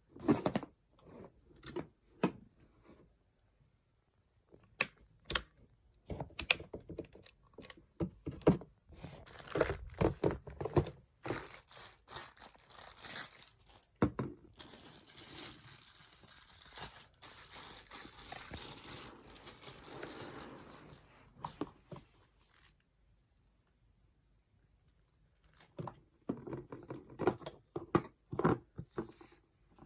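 Packaging being handled and opened: plastic and cardboard rustling, crinkling and tearing, with scattered clicks and knocks and a short pause before the handling resumes near the end.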